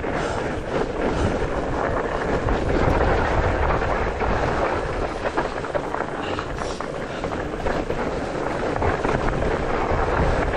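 Mountain bike riding noise: wind buffeting the microphone, with the tyres rolling over the dirt and snow trail and the bike rattling over bumps.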